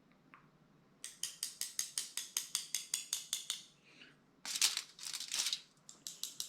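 Crafting materials being worked at a table: a quick run of crisp clicks, about six a second, then a short crinkling rustle, then slower single clicks.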